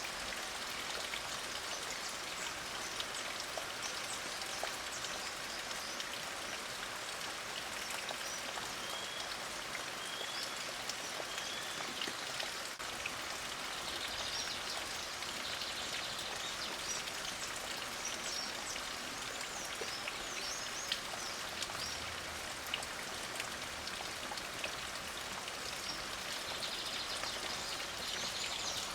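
Light rain falling steadily, with songbirds chirping faintly now and then over it: a run of short rising notes in the first half and scattered quick chirps later.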